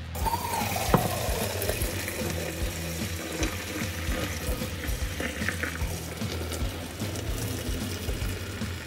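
Turkey stock poured from a pot through a cheesecloth-lined colander into a sink, the liquid splashing and running through, with a single knock about a second in. Background music plays underneath.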